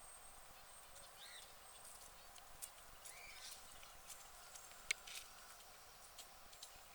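Chickens pecking at grain: a scatter of faint sharp taps, one louder tap just before the five-second mark, with a few soft short calls in between.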